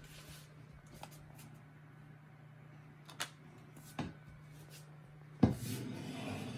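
A few faint sharp clicks and knocks over a steady low hum, then a louder knock about five and a half seconds in followed by a moment of rustling.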